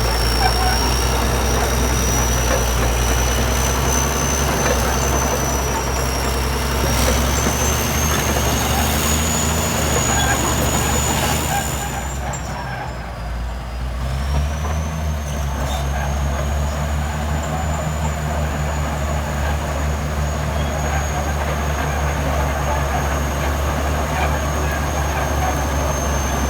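Bulldozer's diesel engine running under load with a steady high whine above it. The engine eases off about halfway through, then picks up again.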